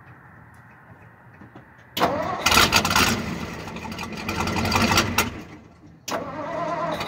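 1959 Ford F600 truck engine started about two seconds in, running loudly for about three seconds before dying away, then starting again about six seconds in.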